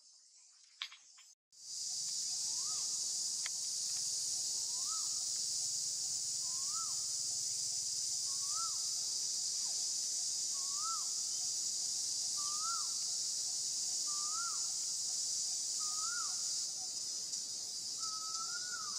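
Steady high-pitched insect drone with a bird calling over it about every two seconds: a short rising-then-falling note repeated some nine times, the last one drawn out. The drone starts abruptly about one and a half seconds in, after a moment of quiet with a couple of faint clicks.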